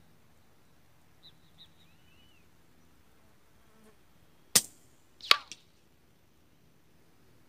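A .22 LR rifle firing a single shot about halfway in, a short sharp crack, followed under a second later by a second sharp crack with a brief falling ring.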